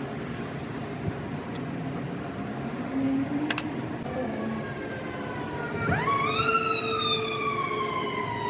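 A siren wailing over a steady background hum. It rises sharply about six seconds in and then slowly falls, with a fainter falling wail before it.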